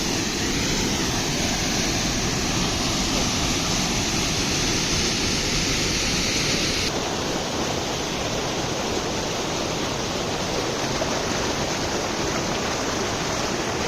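Waterfall in full flow, a steady rushing of falling water. About seven seconds in it turns a little duller.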